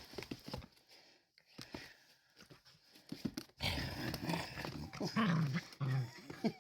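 Puppy growling during rough play while nipping, with soft scuffling clicks at first and a loud, rough growl starting about halfway through.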